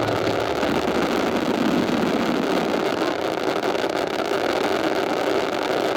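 Fireworks barrage: a dense, continuous crackle and rumble of many shells bursting at once.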